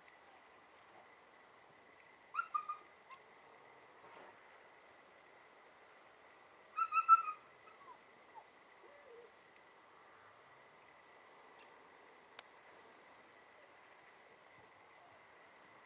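Short bird calls over faint outdoor background: three quick calls about two seconds in, and a louder cluster of calls about seven seconds in.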